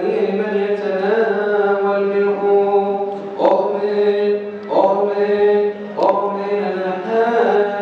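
Male voices chanting a Coptic Orthodox liturgical hymn in long held, sliding notes, over a steady low tone.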